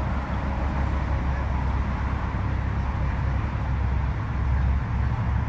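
Steady freeway traffic noise, mostly a low rumble.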